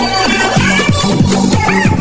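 Sped-up electronic dance music with a steady, fast kick-drum beat and a synth melody.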